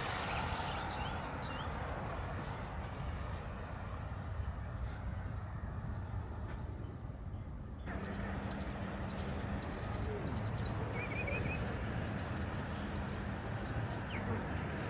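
Small birds chirping in short, quick repeated calls over a steady background hiss of outdoor ambience, which changes abruptly about halfway through.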